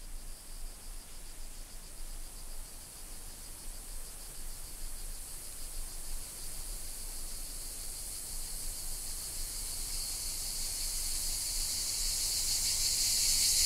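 Insects chirring in a steady, finely pulsing high drone that grows gradually louder toward the end.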